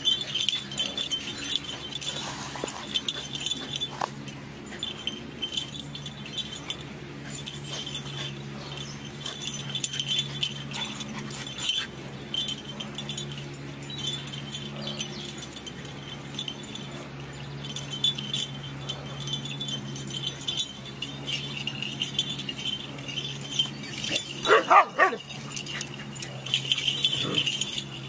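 An Australian terrier and a larger dog play-fighting: a low growl runs on and off throughout, with quick metallic jingling of collar tags, and one short rising bark about 25 seconds in.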